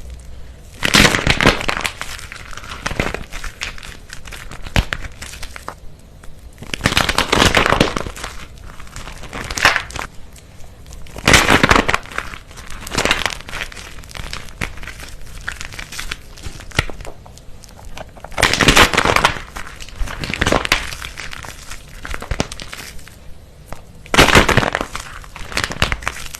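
Brittle dried crisps of soap and starch being crushed, in repeated bursts of crackling and crunching every couple of seconds, with fainter crackle between them.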